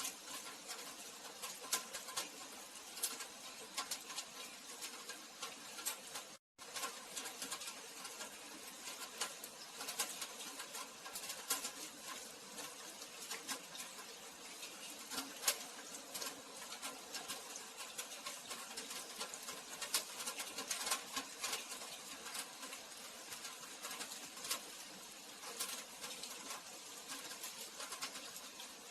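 Rain falling steadily, with many irregular drop ticks over a constant hiss. The sound cuts out completely for a moment about six and a half seconds in.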